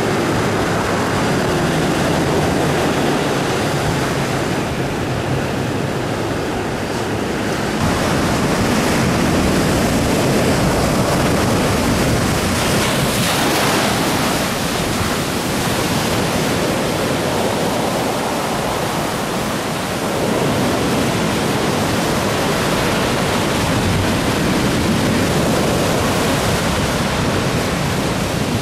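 Ocean surf breaking and washing up over rocks and sand, a steady rush of water that swells and eases as each wave comes in.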